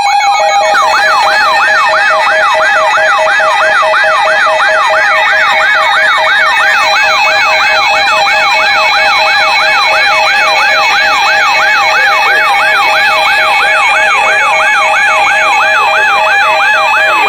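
Emergency weather alert tone: a rapid electronic siren-like sweep rising in pitch and repeating about three times a second over a steady tone. It signals a severe thunderstorm warning.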